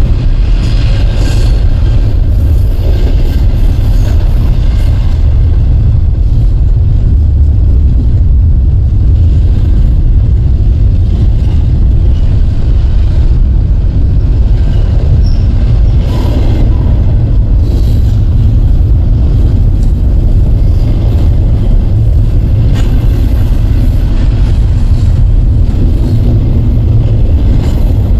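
Union Pacific double-stack intermodal freight train rolling past at speed: a loud, steady, low rumble of wheels on rail, with faint scattered clanks.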